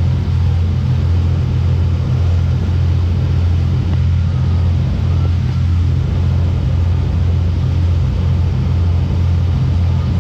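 Motorboat engine running steadily at speed, a loud unchanging low drone, under the rush of water churned up in the wake.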